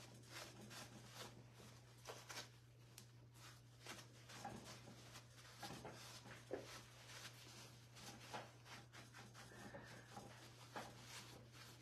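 Near silence: faint, irregular rustles and light taps of a paper napkin rubbing gel stain onto a metal lantern's gold top, over a steady low hum.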